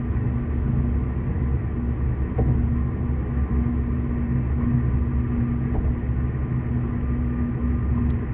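Steady low road rumble of a car at highway speed, heard from inside the cabin: tyre and engine noise with a steady hum. A single brief click comes near the end.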